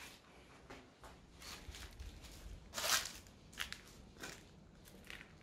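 Footsteps crunching on rubble and debris, a few scattered steps with the loudest about three seconds in.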